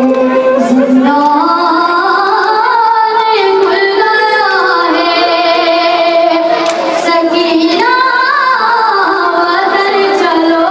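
A boy singing a noha, a Shia lament, in a high voice, holding long notes that slide up and down.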